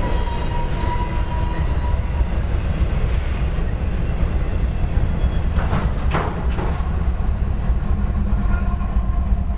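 Freight train rolling past: steel wheels rumbling and clacking over the rail joints under the last auto-rack cars, then the rear GE ES44AC distributed-power locomotive going by, with a cluster of sharper clanks about six seconds in.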